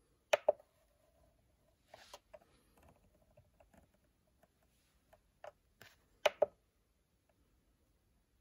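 Keys on an SMC4-4-16A16B CNC motion controller clicking as its menus are stepped through: a few sharp double clicks, press and release, the loudest near the start and about six seconds in, with fainter ticks between.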